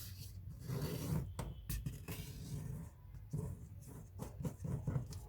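A 6-inch square sheet of origami paper being folded in half and creased flat: irregular rustling and scraping of paper under the fingers, with a few short strokes.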